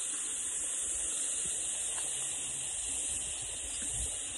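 Cicada chorus in the riverside bush: a steady, high-pitched drone that does not let up.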